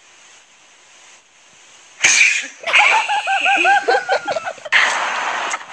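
Faint hiss, then about two seconds in a sudden loud noisy burst, followed by a quick run of high-pitched repeated cries, about six a second, from a voice on the vine clip's soundtrack, then more noise near the end.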